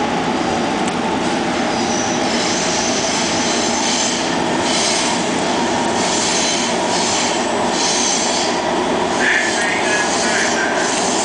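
A Los Angeles Metro Red Line subway car running through the tunnel, heard from inside the car: a steady loud rush and rumble, with high wheel-on-rail squeal that swells and fades about once a second from about two seconds in, and a brief sharper squeal about nine seconds in.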